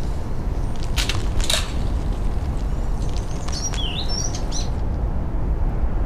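Outdoor field ambience: a steady low rumble of wind, with a bird chirping a few times past the middle and two short crackles about a second in.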